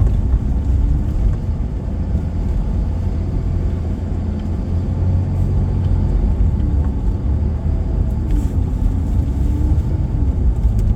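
Road noise inside a vehicle driving slowly over a potholed road: a steady low rumble of engine and tyres, with a faint wavering engine note near the end.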